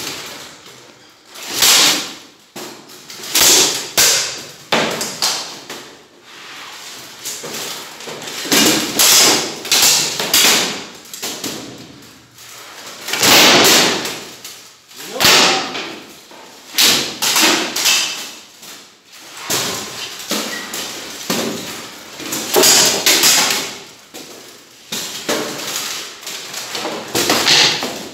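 Steel swords striking shields and plate armour in an armoured knightly sparring bout, with irregular clashes and thuds in clusters every second or two. The blows echo in a large, bare hall.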